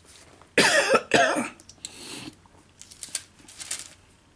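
A man coughs twice in quick succession, loudly, then softer rustling of paper pages near the end.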